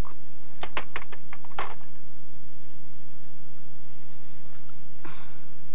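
Desk telephone being handled, the handset going down onto its push-button base: a quick run of clicks and knocks lasting about a second. A softer rustle follows near the end, over a steady low hum.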